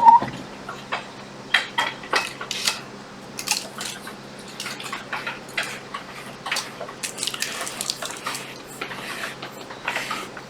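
Irregular light clicks, taps and clatter of small hard objects being handled and set down, a dozen or more in quick, uneven succession, some with a brief metallic ring.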